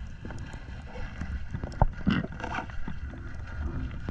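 Underwater sound heard through the camera: a steady low rumble with scattered small clicks and crackles, and one sharper knock a little under two seconds in.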